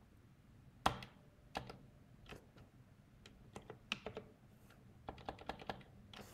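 Computer keyboard keys tapped in short, irregular runs: a single sharp keystroke about a second in, scattered taps through the middle, then a quick cluster of keystrokes near the end.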